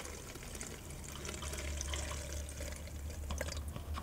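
Fuel mix pouring into a chainsaw's fuel tank: a steady trickling pour with small drips.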